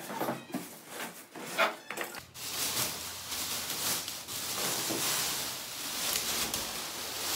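Handling sounds from unpacking a mini fridge: a run of short knocks and clicks, then from about two seconds in a steady rustling hiss, like plastic wrap or foam packing being pulled off.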